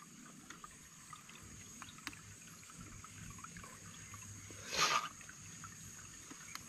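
Shallow stream water trickling faintly while hands grope in it under a rock, with small ticks and dabbles and one louder splash about five seconds in.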